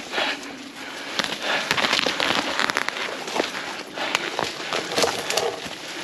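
Crackling rustle and irregular crunches of a hiker's footsteps through dry vegetation, close to the microphone.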